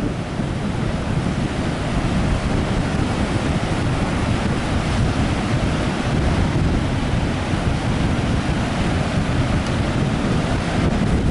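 Rough storm surf breaking continuously on a sandy beach, mixed with strong wind buffeting the microphone in a steady low rumble.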